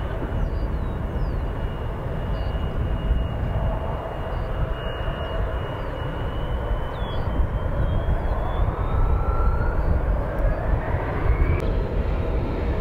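Jet airliner engines running: a steady rumbling roar with a thin whine riding over it, and a second whine that climbs steadily in pitch over the last few seconds.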